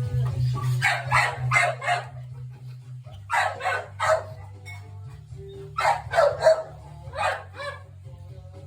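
A dog barking in three quick runs of three or four barks each, over background music.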